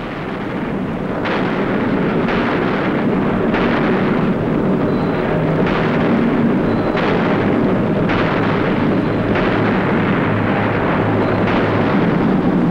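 Loud battle sound of artillery firing and shells exploding: a heavy blast about every second over a continuous rumble that builds up during the first two seconds.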